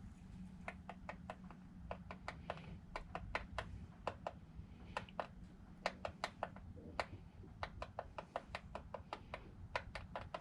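Sharp metallic clicks in quick, irregular runs, several a second, from hand tools and bolts while a truck's differential cover is being bolted on, over a low steady hum.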